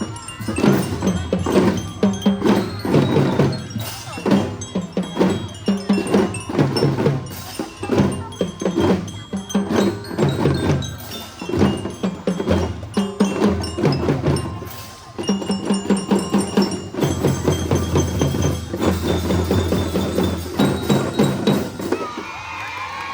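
Children's drum band playing: drums beating a steady march rhythm, with a glockenspiel-like bell lyra ringing the melody. The playing stops about a second before the end and cheering takes over.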